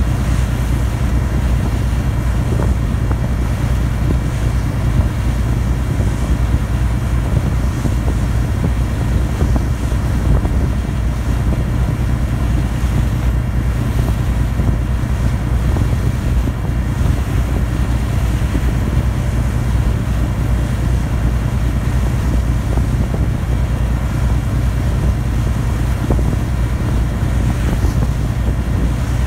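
Ferry under way: its engine runs as a steady low hum, with wind and rushing water over it and wind buffeting the microphone.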